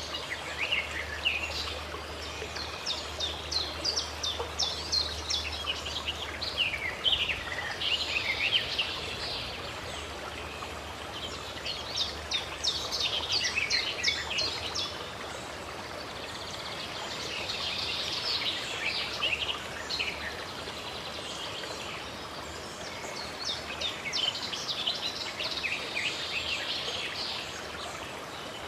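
Birds singing in repeated bursts of quick high chirps and trills, over the steady rush of running water.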